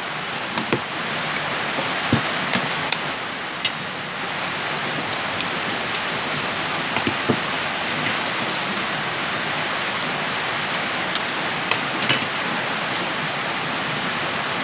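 Steady rain on a corrugated metal roof, an even hiss at a constant level, with a few faint clicks of spoons on plastic plates.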